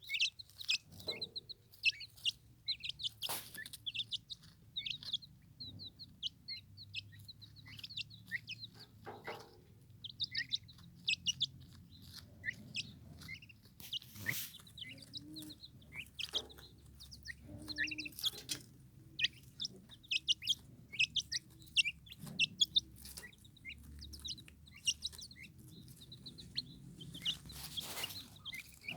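Young turkey poults peeping, a dense run of short high chirps, with a few brief knocks scattered among them.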